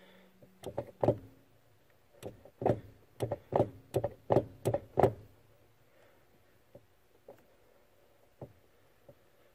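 The brake pedal arm of a 1982–1992 Camaro/Firebird, wiggled by hand, knocking against its pivot. It gives a quick run of sharp knocks over about five seconds, then a few faint ticks. The knocking is the slop of worn pedal pivot bushings.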